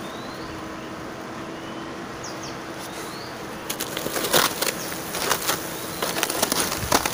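Hornets buzzing on and around a large paper hornet nest, with a few faint bird chirps. About halfway through, a hand starts striking the papery nest: a run of sharp, crackly taps and slaps.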